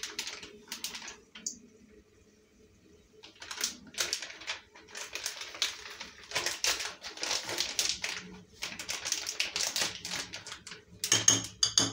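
Fingers stirring runny poppy-seed paste in a ceramic bowl: fast runs of small wet clicks and squelches, coming in bursts with a pause about two seconds in. Near the end comes a sharper clink with a brief ringing.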